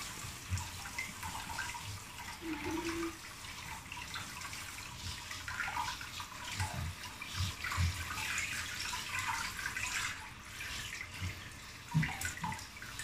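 Water spraying from a handheld shower head onto a wet chihuahua and splashing into a plastic basin, a steady hiss. A few soft low thumps come in past the middle and again near the end.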